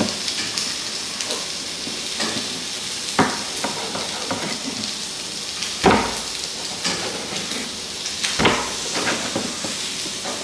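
Chicken frying in a pan with a steady sizzle, and a few sharp clatters of a utensil against the pan about three, six and eight and a half seconds in, the one near six seconds the loudest.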